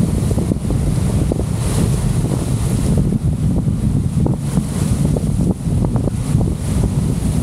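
Storm wind buffeting the microphone: a loud low rumble that rises and falls unevenly, with choppy, whitecapped water splashing underneath.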